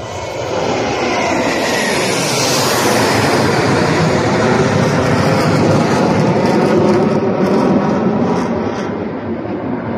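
Formation of Black Eagles KAI T-50B jet trainers passing overhead, their jet engines making a loud, steady roar. The roar builds in the first second, falls in pitch about two seconds in as the jets go by, and eases slightly near the end.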